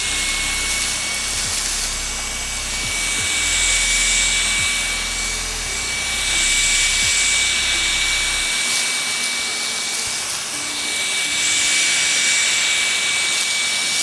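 LG CordZero A9 cordless stick vacuum running with its soft floor roller head on a hardwood floor, picking up crumbled chips. A steady high motor whine sits over rushing airflow, and the sound swells and eases every few seconds as the vacuum is pushed back and forth.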